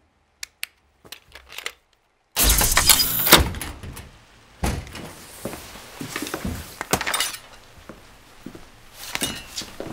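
Glass smashing: a sudden loud crash about two and a half seconds in that trails off over a second or so. A few more sharp crashes and thumps follow later.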